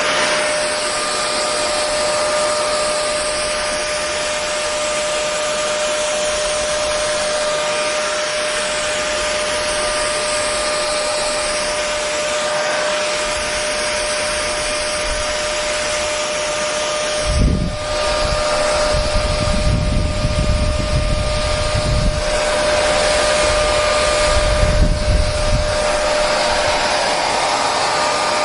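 Hair dryer running steadily: an even rush of blown air with a steady motor whine. From a little past halfway, an uneven low rumbling comes and goes for several seconds.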